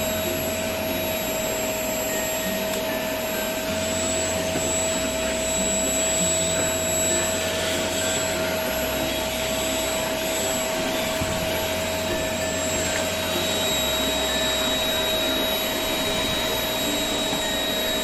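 Steady mechanical whirring with a constant thin whine running through it, typical of the Honda Gyro X scooter's engine running at a steady speed. A low bass line steps along underneath.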